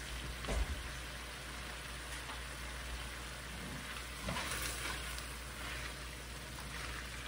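Greens and turnips sizzling steadily in a wok in a reduced soy and brown-sugar glaze, with little liquid left. A spatula stirs and tosses them, briefly louder just after the start and again a little past halfway.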